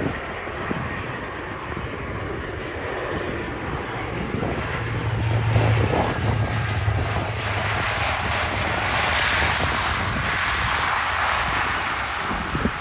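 Military transport plane's engines droning as it lands and rolls down the runway, growing louder in the second half.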